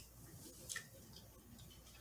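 Faint chewing: soft wet mouth clicks from a person eating, the loudest just under a second in.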